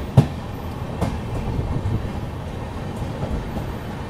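Double-decker express train rolling slowly along a station platform as it pulls in to stop: a steady running rumble with a sharp wheel knock just after the start and a few fainter clicks.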